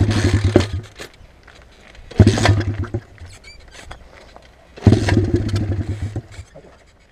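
125 cc pit bike's single-cylinder engine being kick-started three times: each kick spins it over in a short burst of rapid strokes that fades within about a second without the engine catching.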